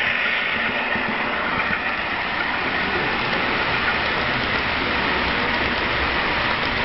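HO scale model passenger train running past at speed, close by: a steady rushing rumble of the cars' wheels on the rails.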